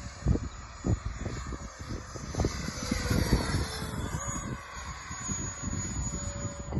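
70mm electric ducted fan of a model F-35 jet flying past: a whining rush that swells to a peak about three seconds in, its pitch dropping as it goes by. Gusts of wind buffet the microphone throughout.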